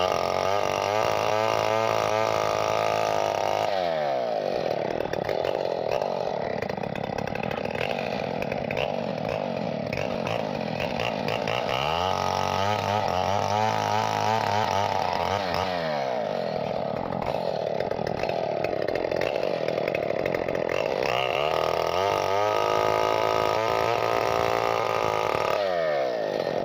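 Two-stroke chainsaw running loud and continuously, its engine pitch sagging and recovering three times.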